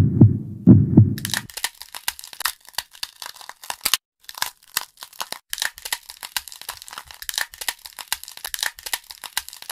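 Low, regular heartbeat thumps for about the first second and a half, then a dense run of quick scratching and crackling as a needle scrapes around the umbrella shape in a dalgona honeycomb candy.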